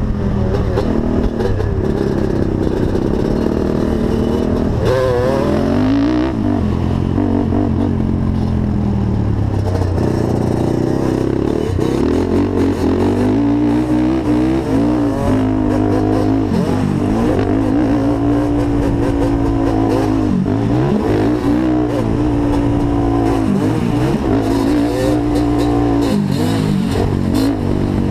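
Honda TRX450 quad's single-cylinder four-stroke engine revving hard and easing off again and again as it is ridden around a dirt track, the pitch repeatedly climbing and dropping through the gears.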